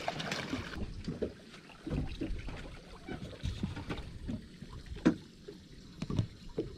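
Water sloshing against the hull of a small boat, with a few knocks, the sharpest about five seconds in.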